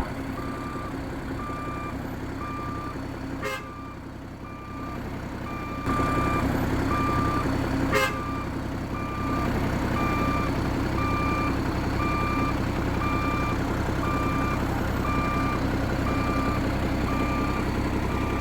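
A large vehicle's reversing alarm beeping at an even rhythm over its engine running, the engine getting louder about six seconds in.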